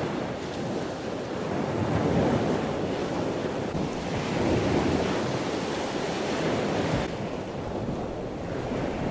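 Small waves breaking and washing up on a sandy beach, the wash swelling and easing, with wind buffeting the microphone.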